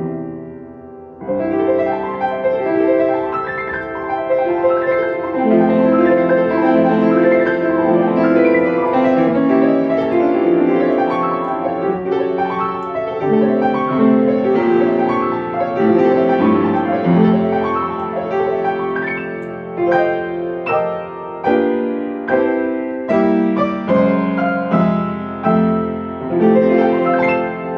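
Solo piano playing: a flowing run of overlapping notes that ring on into one another. About two-thirds of the way through it turns to separately struck chords with short gaps between them.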